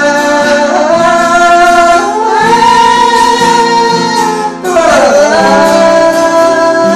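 A voice singing long held, wavering notes over acoustic guitar accompaniment, with a swoop down in pitch about five seconds in.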